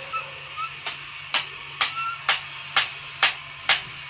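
Steady hammer blows, about two a second, driving a khukuri handle down onto its hot tang as the tang burns its way in; sharp knocks, the first about a second in.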